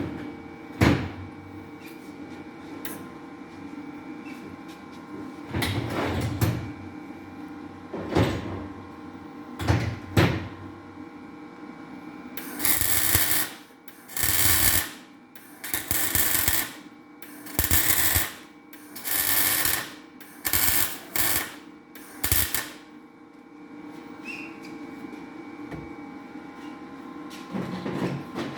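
Electric welder crackling in a run of about nine short bursts of roughly a second each, laying weld beads onto cylinder head exhaust valve seats so they can be knocked out. A few sharp knocks come before the welding, over a steady shop hum.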